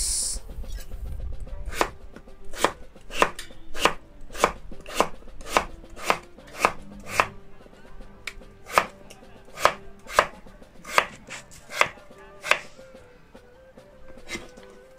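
Large kitchen knife slicing peeled raw potatoes into thin rounds on a wooden cutting board: a sharp knock of the blade on the board with each cut, about two a second. The cutting starts about two seconds in and tails off after about twelve seconds.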